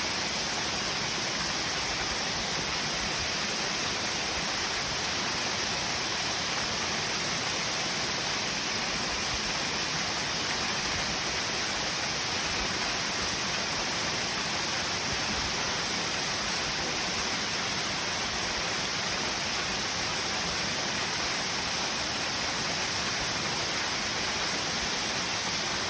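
Waterfall rushing in a steady, hissing roar of falling water that does not change.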